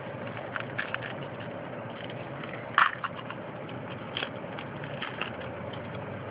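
Yu-Gi-Oh trading cards being handled and flipped through: scattered light clicks and rustles, with one sharper snap about three seconds in.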